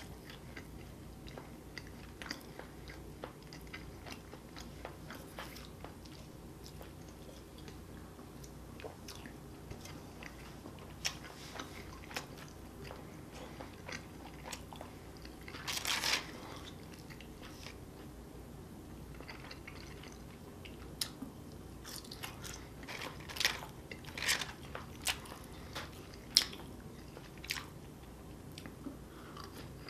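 Close-miked chewing of a burger and fries: soft wet mouth clicks and small crunches throughout, with a louder crunch about halfway through and a run of sharper clicks toward the end.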